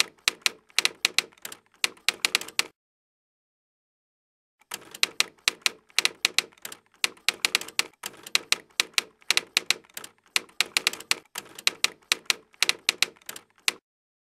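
Typewriter keys clacking in quick runs: a burst of about three seconds, a pause of about two seconds, then a longer run of about nine seconds that stops shortly before the end.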